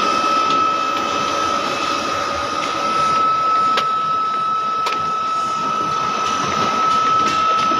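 Steady high-pitched machine whine held on one pitch over a dense, even rushing noise, with a few faint clicks.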